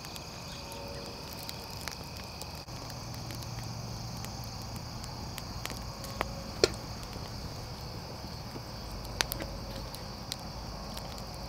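Steady high-pitched drone of insects, with a few sharp crackles from the cooking fire at about six and nine seconds in.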